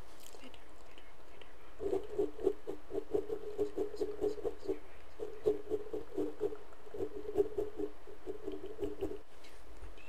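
Fingertips rapidly tapping and scratching right on the microphone as an ASMR mic effect, in three quick runs with short breaks, stopping about nine seconds in.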